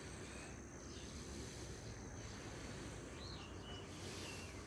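Rural outdoor ambience: a steady low rumble, a thin steady high insect whine, and a few short bird chirps from about three seconds in.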